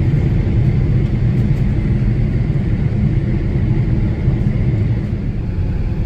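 Steady cabin rumble of a Boeing 787 Dreamliner on final approach: engine and airflow noise heard from inside the cabin, with a faint steady whine above it.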